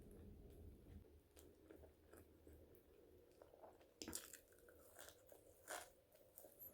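Close-up chewing and biting of Potato Corner flavoured french fries, with soft, scattered crunches and two sharper crunches about four seconds in and near the end.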